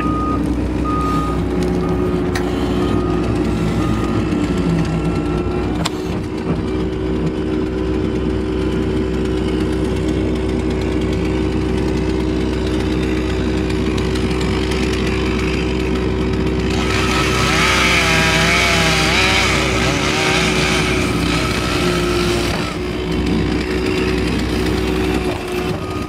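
Case TV450 skid steer's diesel engine running steadily, heard from inside the cab, with a steady hum. From about 17 to 22 seconds a chainsaw cutting outside rises over it, its pitch wavering as it is throttled.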